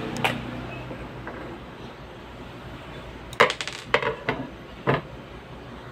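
Sharp clicks and knocks of the hard plastic scanner unit of an Epson L210 printer being handled and lifted: one click just after the start, then a quick cluster of about five between three and a half and five seconds in.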